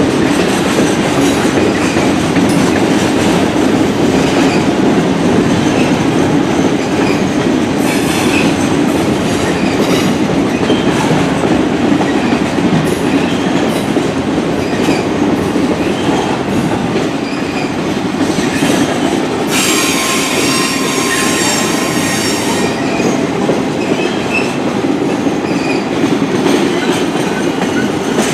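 Norfolk Southern roadrailer train rolling past: a steady rumble with repeated wheel clicks over the rails, and a high-pitched wheel squeal lasting about three seconds about two-thirds of the way through.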